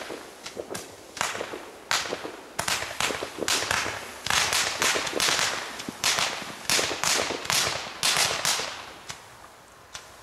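Consumer fireworks firing a rapid series of comet shots, each a sharp pop that trails off briefly. The shots come thick and fast, then thin out and stop near the end.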